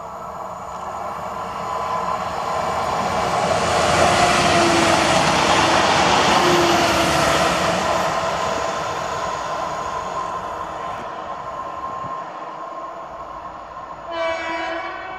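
Newag Impuls 2 (36WEd) electric multiple unit passing: the rush of its wheels and body swells as it comes close, peaks for a few seconds with a steady whine, and fades as it goes away. A short pitched note sounds near the end.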